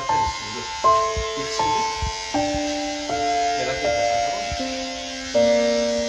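Background instrumental music: a slow melody of held notes, a new note starting every half second to a second.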